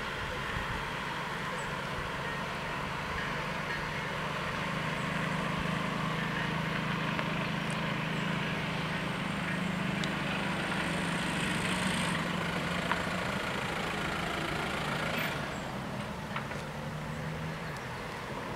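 An engine running steadily with a low hum that swells in the middle and eases off near the end.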